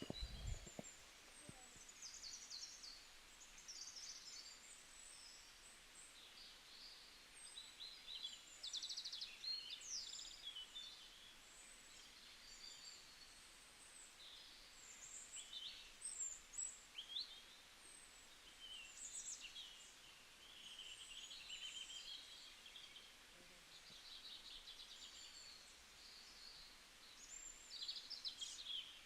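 Faint songbirds chirping and trilling: many short, high calls in quick succession, some rising or falling, with a brief low thump right at the start.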